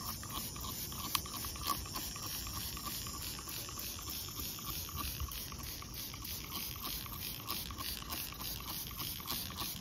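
Trigger spray bottle squirting glass cleaner onto a car window in repeated pumps, over steady chirping of insects.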